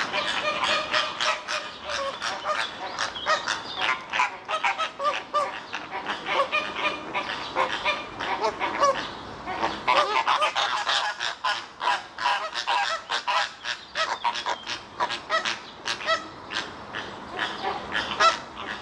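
A flock of flamingos calling: a constant din of short, overlapping honks.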